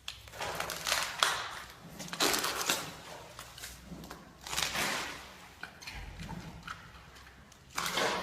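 Giant panda biting and chewing bamboo: about four bouts of loud crunching and cracking a second or two apart, with quieter chewing crackles between them.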